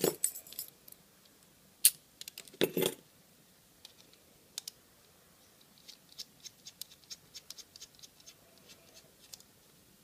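Small metal lock parts being handled: a few sharp clicks and clatter in the first three seconds, the loudest a single click just before the two-second mark. Then a run of light ticks and scrapes as a precision screwdriver tip works at a brass padlock core.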